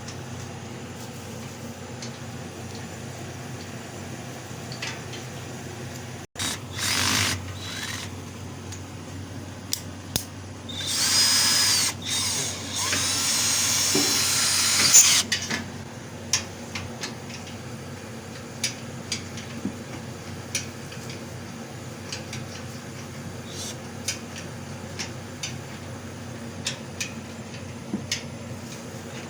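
A handheld power drill runs in two bursts: a short one about seven seconds in, then a longer one of about four seconds from around eleven seconds in. Between them are a steady low hum and scattered clicks and knocks of tool handling.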